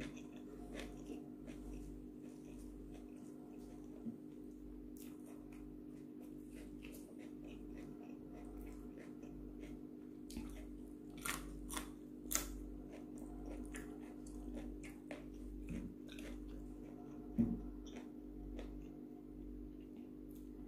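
A person chewing and biting raw vegetables, a raw long bean among them, close to the microphone: soft, scattered crunchy bites and mouth clicks, with a few louder bites about eleven to twelve seconds in, over a steady low hum.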